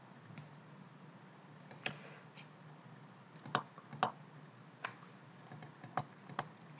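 Faint, irregular clicking at a computer, about eight clicks spread over several seconds, as presentation slides are stepped through, over a faint low steady hum.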